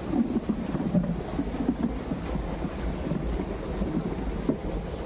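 Shallow stream water rushing and splashing around a toy Jeep wading through the current, with wind rumbling on the microphone.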